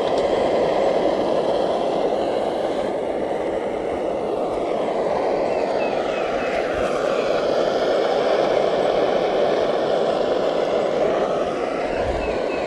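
Steady rushing of a portable canister camp stove's gas burner, with morels frying in butter in a small pan on top of it.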